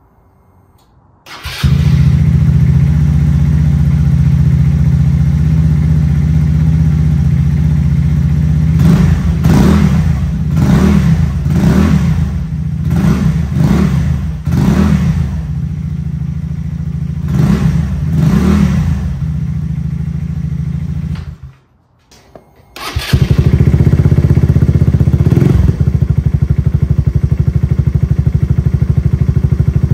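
2012 Genuine Buddy 170i scooter's single-cylinder four-stroke engine starting about a second in and idling through a freshly fitted Prima stainless steel performance exhaust, with a series of short throttle blips in the middle. The sound breaks off briefly a little after twenty seconds, then the engine is heard idling again, louder, with one more blip.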